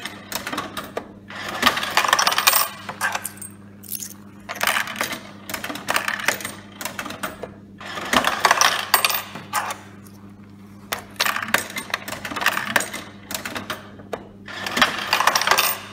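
Coins clattering down through a vending machine's change mechanism into the return cup as the coin-return button is pressed, paying out in a string of bursts every two to three seconds. A steady low hum runs underneath.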